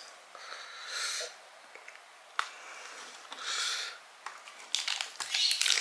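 Close-miked eating sounds: two breaths through the nose, then a quick run of crunchy chewing clicks near the end as crispy fried chicken with kremes crumbs is bitten and chewed.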